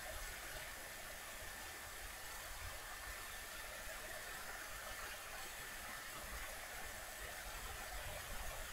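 Steady low hiss of background noise with a faint, even high whine through it. No distinct knocks from the knife cutting the soft dough stand out.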